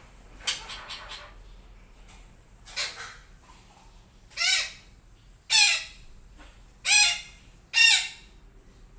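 Psittacula parakeet (Sumatran betet) giving harsh squawking calls: a few soft chirps, then four loud, rasping calls about a second apart, the last ones the loudest.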